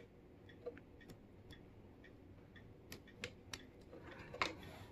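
Faint, scattered small clicks and taps of wires, connectors and small electronic parts being handled, with a light rustle near the end.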